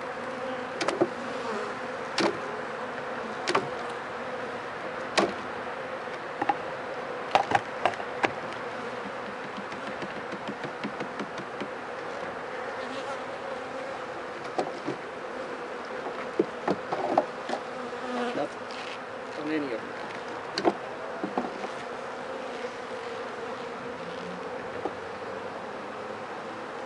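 Honeybee colony buzzing in a steady hum around an opened hive. Sharp clicks and knocks come every second or two early on and again in the middle, as a metal hive tool pries at and shifts the wooden frames.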